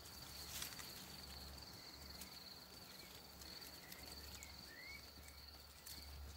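Faint, steady high-pitched trill of an insect, running unbroken, with a few short faint rising chirps in the middle.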